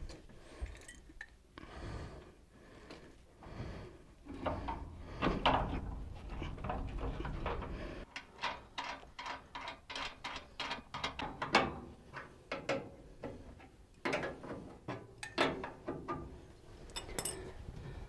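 Metal clicks, knocks and scraping as a furnace blower motor with its belt pulley is handled and fitted back into its mount in the sheet-metal cabinet, with a quick run of small clicks, about three or four a second, in the middle.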